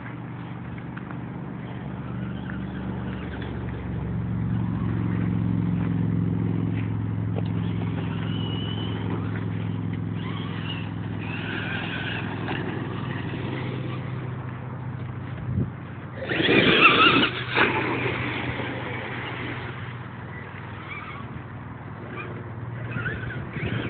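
Electric RC monster truck (E-Maxx with 775 motors) driving, its motors and drivetrain giving a steady low hum that swells around five seconds in. About sixteen seconds in there is a loud rough burst of noise lasting a second or two.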